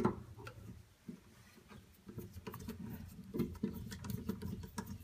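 Small scraping and clicking handling sounds of a screwdriver and a wall switch's metal mounting strap being worked into a metal electrical box. A sharp click comes at the start, and an irregular scatter of ticks and scratches follows from about two seconds in.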